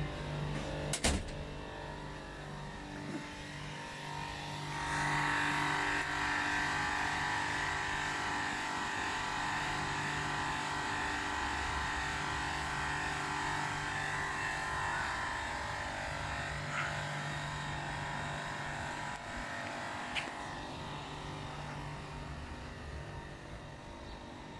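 Steady mechanical hum with a whine that grows louder about five seconds in and fades near the end, with a sharp click about a second in.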